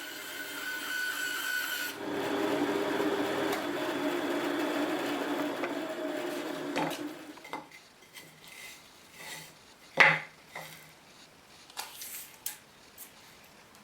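A woodworking power tool running on wood, a steady noisy drone with a few held tones, then stopping about seven and a half seconds in. Scattered knocks and clicks of wood being handled follow, one louder knock about ten seconds in.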